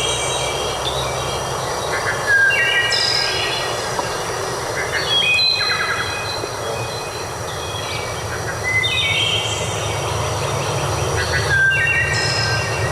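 Songbirds singing short whistled phrases that repeat every few seconds, over a steady low rumble and a continuous hiss of background noise.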